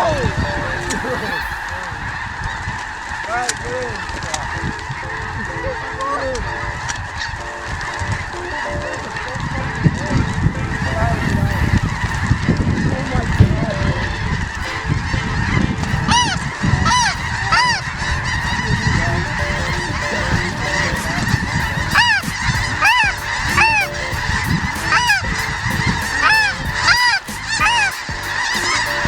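Snow geese calling in a large chorus: a continuous din of overlapping high honks that thickens in the second half, with single calls standing out clearly. A low rumble sits under it about ten to fifteen seconds in.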